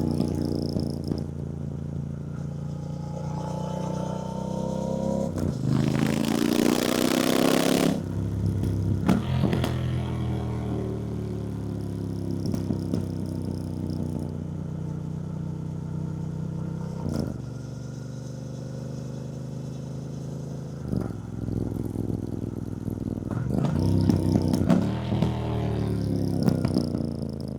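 2024 Triumph Bonneville T120's 1200 cc parallel-twin engine under way: rising in pitch as it accelerates, dropping back and holding steady at cruise, then picking up again near the end. A loud rush of noise lasting about two seconds comes about six seconds in.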